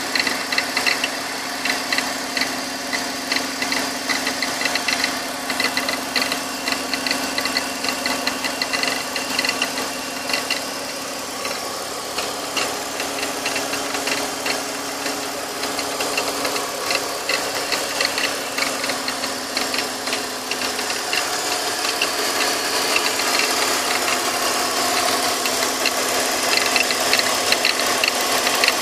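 BMW X3 E83's M54B25 straight-six engine running at operating temperature, with a gurgling sound over fast ticking. About 21 seconds in a steady hum drops out and the engine sound grows a little louder.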